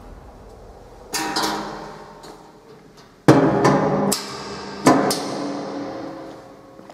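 Stainless-steel housing of a Palmia mixer knocked three times in quick pairs of metallic bangs, each ringing on with a fading tone. The middle pair is the loudest.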